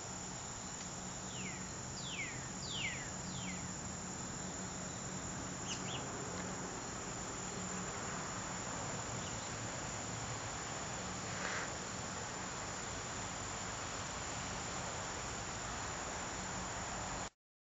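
Late-summer evening chorus of crickets and other insects, a dense steady trilling over a low steady hum. Four quick falling chirps come about two seconds in, and the sound cuts off suddenly near the end.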